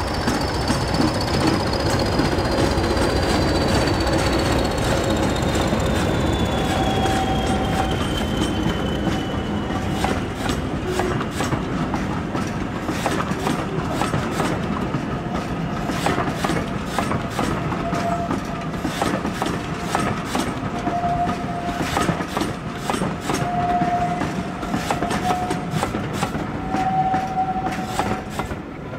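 A pair of English Electric Class 20 diesel locomotives passing with a train. The engines run with a high whistle that falls in pitch over the first ten seconds or so. Then the coach wheels click steadily over rail joints, with short squeals from the wheels.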